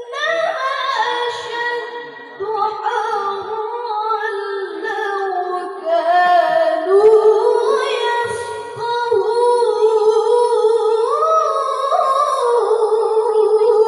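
A female voice chanting Quran recitation in the melodic mujawwad style into a microphone: long held notes with ornamented turns that rise and fall in pitch.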